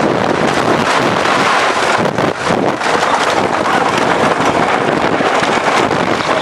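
Custom Coasters International wooden roller coaster train running fast: a steady rush of wind on the microphone mixed with the dense clattering rumble of the wheels on the wooden track.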